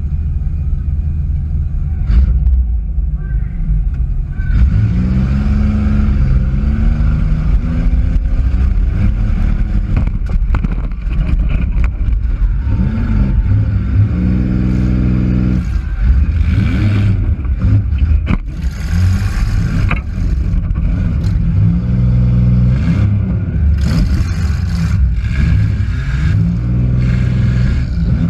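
Demolition derby car's engine revving hard and dropping back again and again, heard from inside the car, with a few sharp knocks and bangs partway through.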